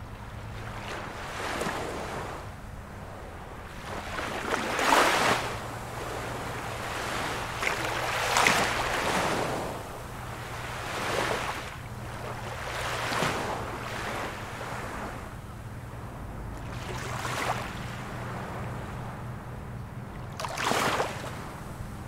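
Small ocean waves breaking and washing in on the shore, one after another, each surge rising and falling over a second or two. The loudest breaks come about five, eight and twenty-one seconds in.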